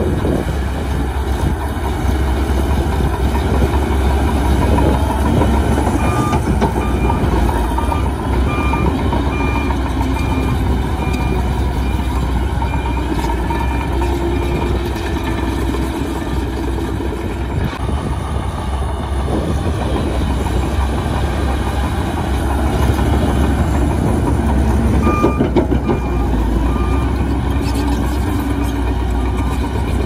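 Shantui DH17C2 LGP crawler bulldozer's diesel engine running under load, with its steel tracks clattering as it pushes earth and moves across the site. A reversing alarm beeps steadily for several seconds about six seconds in and again briefly near the end.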